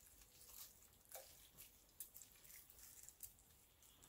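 Faint soft squishing and a few light clicks of a metal utensil stirring wet, cooked-down collard greens in a slow cooker.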